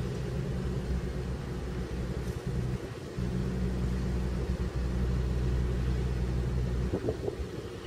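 Diesel engine of a shirasu (whitebait) fishing boat running steadily with a low hum, dipping briefly twice.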